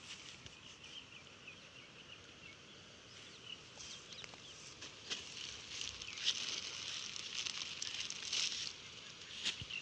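A thin plastic bag crinkling and rustling in the hands, louder from about four seconds in and stopping shortly before the end, over faint bird chirps.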